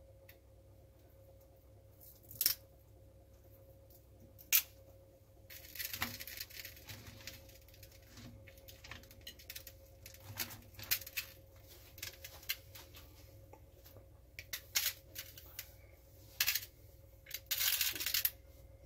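Cooked lobster shells clicking, knocking and scraping against a nonstick frying pan as the pieces are set down and arranged. The clicks come irregularly, with longer rustling scrapes about five seconds in and again near the end.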